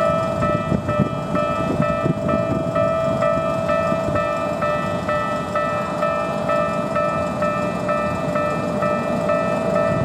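Japanese level crossing warning bell ringing in a steady, quick repeating pattern of about two strikes a second: the crossing is closed for an approaching train.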